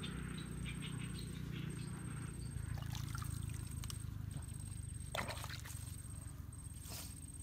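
Hands working in wet mud and handling a plastic bag: small crackles and a few short rustles, the sharpest a little past halfway, over a steady low rumble.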